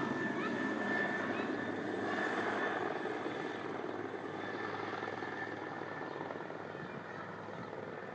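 Agusta Bell 412 SP search-and-rescue helicopter's twin turbine engines and rotor running, a steady whine and rotor noise growing steadily fainter.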